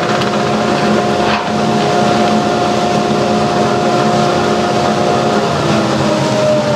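Wood lathe running with a steady motor hum and whir over a hiss. About six seconds in, the hum drops in pitch and keeps sinking as the lathe starts to slow.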